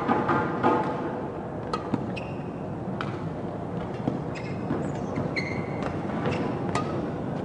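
Badminton rally: sharp cracks of rackets striking the shuttlecock every second or so, with short squeaks of court shoes on the mat as the players lunge, over a steady crowd background.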